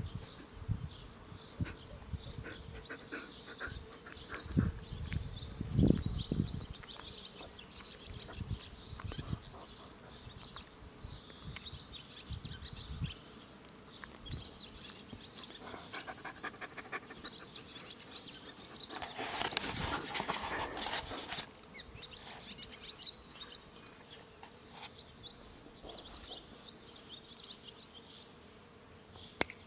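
Rough collie panting, with insects buzzing faintly in the background and a few low bumps in the first half.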